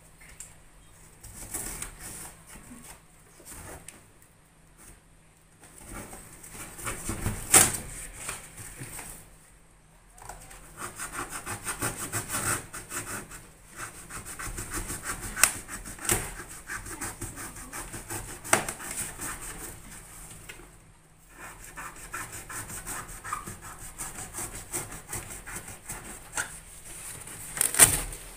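Cardboard carton of a new air cooler being cut and torn open: long runs of rapid rasping and scraping rips through the cardboard, with a few sharp knocks and thumps as the box walls are pulled away.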